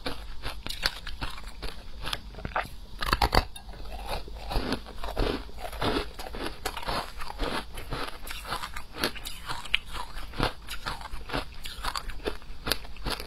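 Shaved ice being bitten and chewed: dense crunching and crackling as the ice breaks between the teeth, with a louder crunch about three seconds in.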